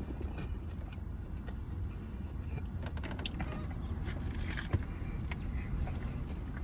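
Chewing and crinkling of a paper burger wrapper with small scattered clicks, over a steady low hum inside a car. A louder burst of rustling comes about four seconds in, followed by one sharp click.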